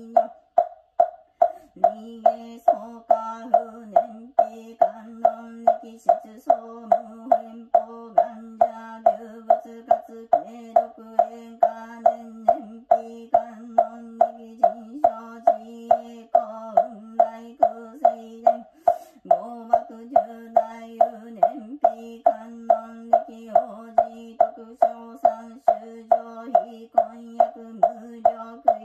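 Buddhist sutra chanting in one held pitch, kept to a steady beat of a mokugyo (wooden fish drum) struck about twice a second. The voice breaks off for breath about a second in and again around two-thirds of the way through while the knocking carries on.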